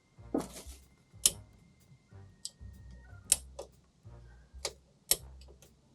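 Six or so sharp, irregular clicks and knocks with a brief rustle near the start, over quiet background music.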